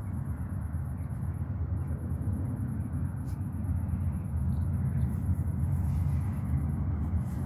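Steady low rumble of distant traffic, with a faint, rapidly pulsing high-pitched buzz over it.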